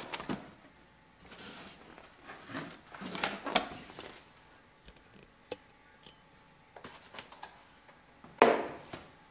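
Cardboard packaging being handled by hand: irregular rustling and scraping of the box flaps, a few sharp light clicks in the middle, and a louder burst of cardboard noise near the end.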